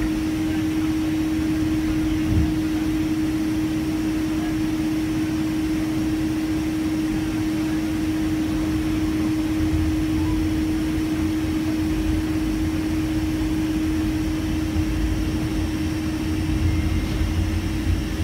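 Airliner cabin noise heard from a window seat as the plane rolls on the ground after landing. It is a steady hum with one constant low tone over a rumble that swells a little now and then.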